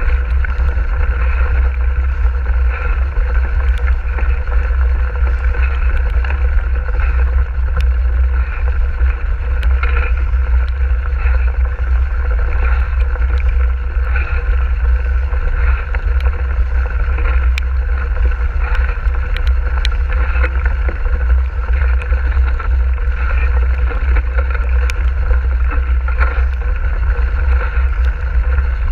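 Mountain bike rolling along a wet gravel track, picked up by a GoPro on the bike or rider: a heavy, steady low rumble of tyre and trail vibration and wind on the microphone, with a constant hum and a few sharp clicks and rattles.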